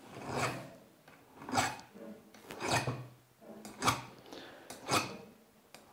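Needle file scraping across the hard drive pinion of a Makita 5008MG circular saw's gearbox in about five strokes, roughly a second apart. It is a hardness test: the file bites into the gear only reluctantly.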